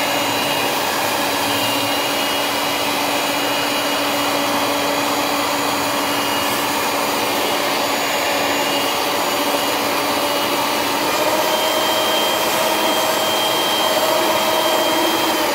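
Electric stand mixer running steadily, its wire whisk beating whipped egg whites and poured-in yolks in a stainless steel bowl. A constant motor whine whose pitch steps up slightly about eleven seconds in.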